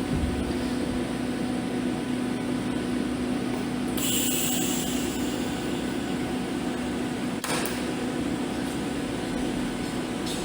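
Steady electrical hum with a constant low tone. About four seconds in comes a brief hiss, and a short click follows a few seconds later.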